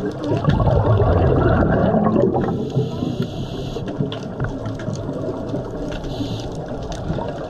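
Scuba diver breathing underwater through a regulator: a rush of bubbling noise for about two seconds, then a short hiss, and another brief hiss about six seconds in.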